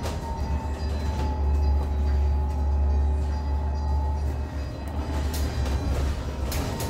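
Inside a Zhong Tong LCK6126EVG electric city bus under way: a steady low road and drivetrain rumble with a thin high motor whine that sinks slightly in pitch and rises again near the end. A few light rattles come late.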